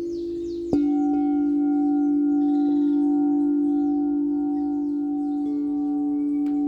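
Singing bowls ringing: a low bowl hums steadily, another is struck about a second in and adds higher tones that ring on, and a further soft tone joins near the end.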